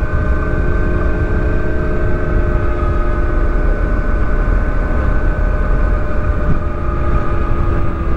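Wind rushing over the microphone while riding a 2020 Zero DSR electric motorcycle, with the electric drive's steady whine that sinks slightly in pitch near the end.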